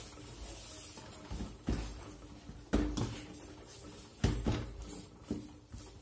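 Hands kneading a soft maida-and-ghee dough in a steel plate: a few dull thumps as the dough is pressed down, with faint rubbing in between.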